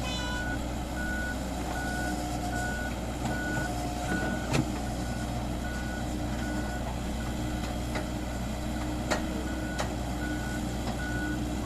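Heavy vehicle's reversing alarm sounding a steady run of evenly spaced beeps over its running engine, with a few sharp knocks partway through.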